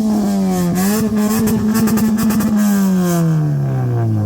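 Car engine held at high revs with a brief dip, then falling steadily back toward idle. Its exhaust crackles with rapid pops and bangs through the middle of the rev.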